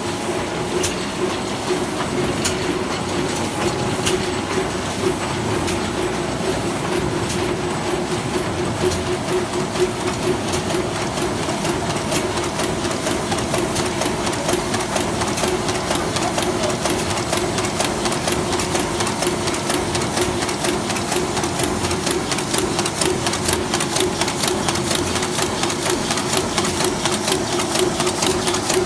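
Heidelberg Speedmaster SM 74 sheetfed offset press running, a steady mechanical hum under a fast, even clatter of clicks from the sheet-feeding and printing mechanism.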